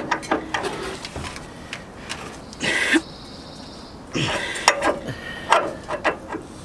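Scattered metal clicks and knocks from a wrench turning the forcing bolt of a pitman arm puller, with a couple of short strained grunts of effort.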